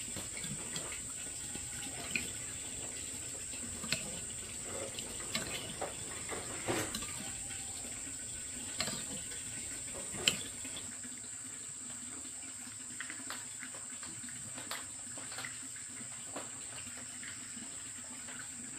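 A steady high insect drone, like crickets, over light splashing of water, with scattered small knocks and clicks.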